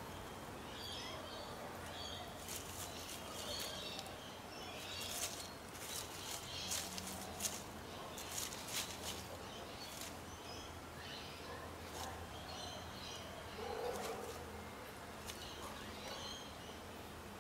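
Dry leaf litter crackling and rustling as an Australian brush turkey chick scratches and pecks through it, with most of the crackles in the first half. Faint bird chirps sound in the background over a low steady hum.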